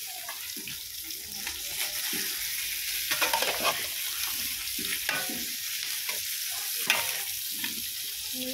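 A steel spatula stirring a thick duck curry with potatoes in a metal pot, over a steady sizzle from the hot sauce, with a few louder scrapes against the pot.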